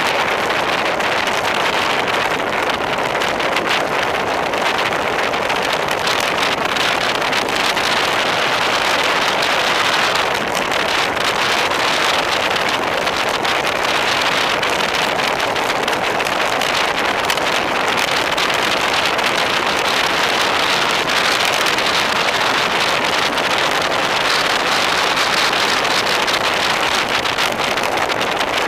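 Wind rushing over the microphone of a handlebar-mounted camera on a road bike descending at speed: a loud, steady rushing noise with no breaks.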